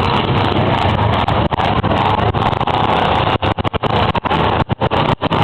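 Engines of Baja race cars running on a dirt course. The sound is loud and steady, then cuts out briefly again and again in the second half.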